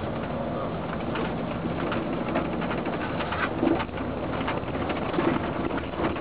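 Steady rumble of a moving vehicle heard from inside, with low engine hum and small rattles throughout.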